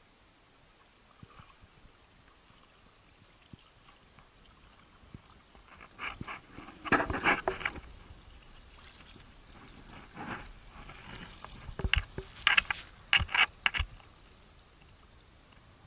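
Water splashing around a kayak: paddle strokes and small waves slapping the hull. The splashes come in two short flurries, one about six seconds in and another about twelve seconds in.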